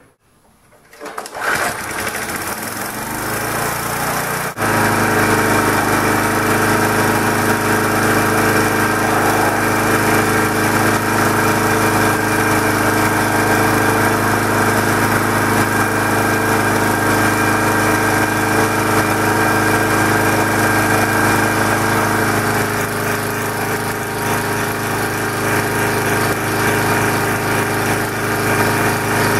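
A 3.5 hp Tecumseh single-cylinder gasoline engine starting up over the first few seconds, then running steadily at about 3125 rpm while it drives an alternator as a dynamometer load.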